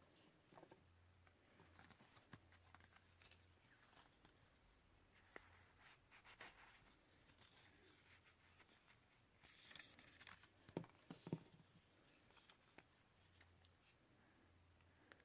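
Near silence with faint scattered clicks and paper rustles from a paper doll being handled, and a few sharper taps a little past the middle.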